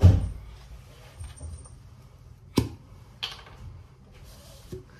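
Items being handled and set down: a low thump at the start, then two sharp clicks about half a second apart and a short rustle near the end.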